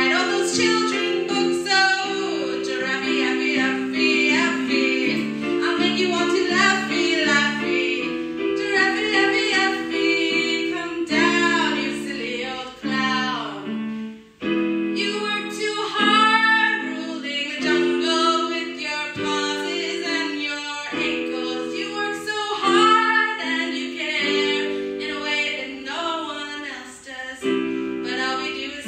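A song: a woman singing over held keyboard chords, with a short break in the sound about halfway through.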